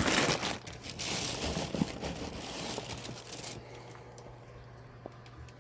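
Plastic snack bag of geonppang (Korean hardtack biscuits) crinkling as it is handled: a short rustle, then a longer run of crinkling from about a second in until past three seconds.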